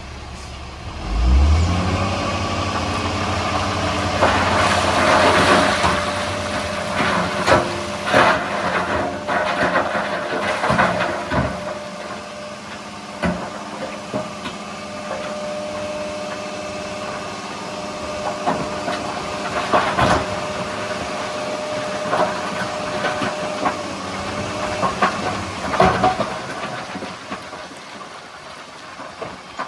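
Diesel engine of heavy earthmoving machinery running and revving up about a second in, with repeated metallic clanks and knocks.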